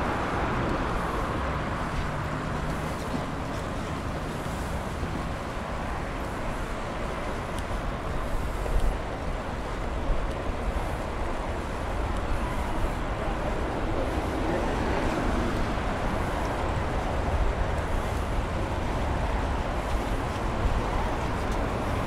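Steady road-traffic noise from a busy multi-lane road alongside, mixed with the rush of a moving bicycle's wind and tyres on pavement. A couple of brief knocks about halfway through.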